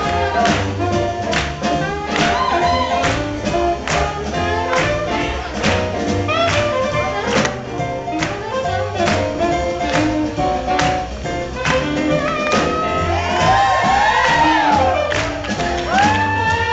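Live swing band playing for lindy hop dancers: trombone, saxophones, upright bass, piano and drums over a steady beat. Near the end the horns bend their notes up and down.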